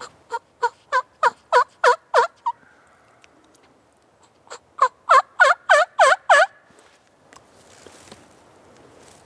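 Turkey yelping, close and loud: a run of about eight yelps at roughly three a second, a pause of about two seconds, then a second run of about seven, each note breaking from high to low.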